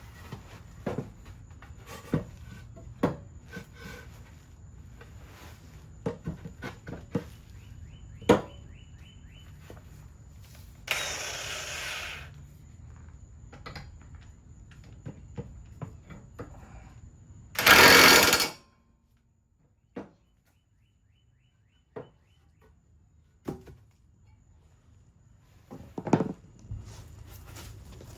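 Hand tools and metal parts clanking and knocking during blade and spindle work on a zero-turn mower deck, with a short run of ratchet-like clicks about eight seconds in. Two loud rushing noise bursts of about a second each come around a third and two thirds of the way in, the second the loudest.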